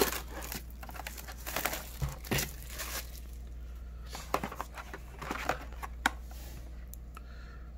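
Crinkling and rustling of packaging, with a few light knocks, as a cardboard trading card blaster box is picked up and handled.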